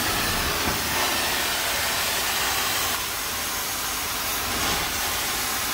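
A 14-inch four-jet carpet extraction wand on a truck-mounted hot-water extraction system, spraying hot rinse water into the carpet and sucking it back up as it is drawn across. The result is a steady rushing hiss.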